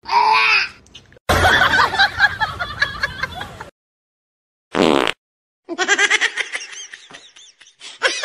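A person laughing in quick repeated bursts during the second half, after a few short pitched sounds that end in abrupt silent cuts.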